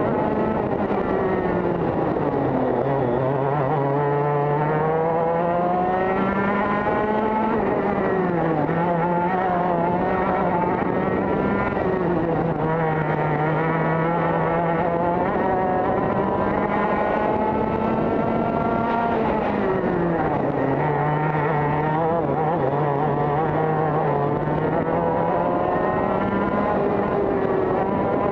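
Two-stroke TKM kart engine at full racing revs, heard from on board the kart, with wind noise. Its pitch climbs along the straights and drops sharply as the kart brakes into corners, a few seconds in and again about twenty seconds in.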